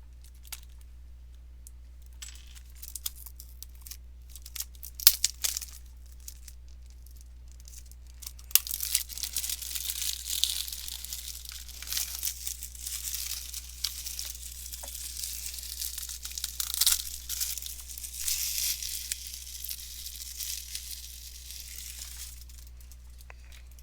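Plastic shrink-wrap being picked at and torn off a Blu-ray case: a few scattered crackles at first, then steady crinkling and tearing from about eight seconds in until near the end.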